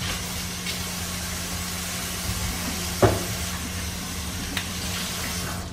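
Egg-battered peanut butter and jelly sandwiches shallow-frying in hot oil in a pan, a steady sizzle, with a single sharp knock about three seconds in.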